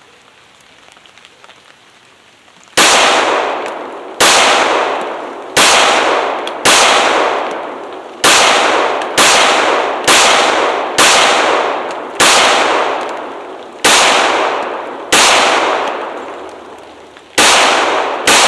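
Pistol firing .45 ACP hollow-point rounds, about a dozen single shots spaced roughly one to one and a half seconds apart, each with a long echoing tail. The first shot comes near three seconds in.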